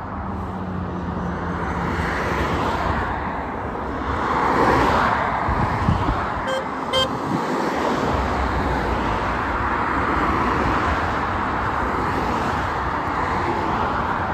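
Road traffic passing close by, tyre and engine noise swelling and fading as vehicles go past, with two short horn toots about halfway through.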